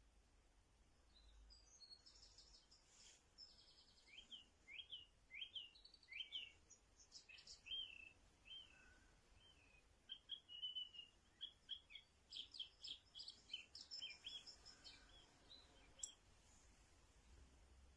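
Recorded birdsong played as a wake-up alarm sound by a Philips HF3519/01 wake-up light: faint, repeated chirps and short rising whistles, growing busier about twelve seconds in.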